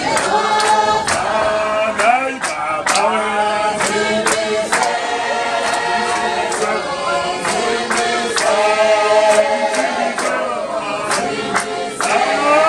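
A congregation of men and women singing together unaccompanied, with a steady hand-clapping beat.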